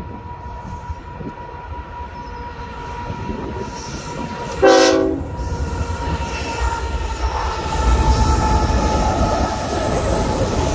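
Diesel freight train led by a GE ES44AC and a C44-9W locomotive: one short horn blast from the lead unit about five seconds in, then the locomotives' engines rumbling louder as they pass close by.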